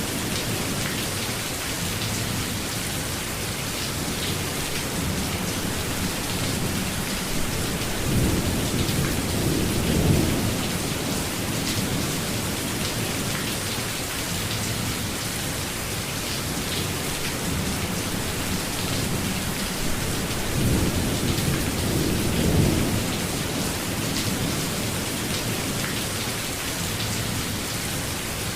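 Steady heavy rain falling, with two low rolls of thunder: one building about eight seconds in and peaking near ten, another about twenty-one to twenty-three seconds in.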